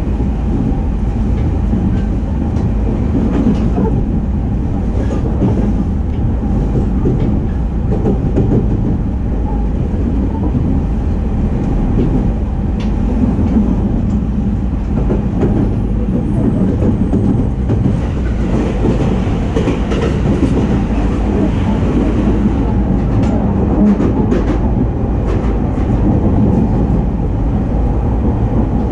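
Running noise heard inside the motor car of a JR 209-series electric commuter train under way: a steady low rumble of wheels on rail with a constant hum. Scattered short clicks from wheels passing over rail joints are bunched twice, once a few seconds in and again near the end.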